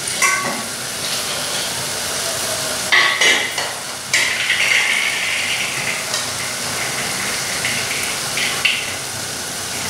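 Coconut, ginger, garlic and onion paste sizzling steadily as it fries in oil in an aluminium pot. A few sharp knocks come just after the start, about three seconds in and about four seconds in.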